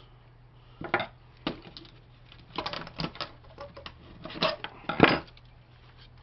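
Clicks and clatter of hand tools on the metal and plastic parts of a DVD-ROM drive as it is pried apart with pliers and a screwdriver. The clatter comes as a run of separate knocks, the sharpest about five seconds in.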